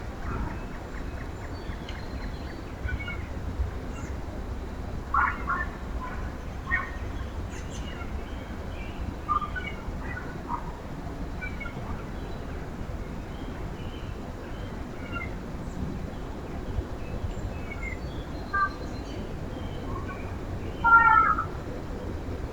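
Backyard songbirds calling around a feeder: short, scattered chirps and mew-like notes, with a louder cluster of calls near the end, over a steady low rumble.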